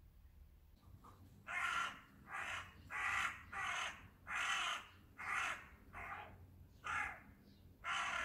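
Crow cawing: a steady run of about nine short caws, starting about a second and a half in.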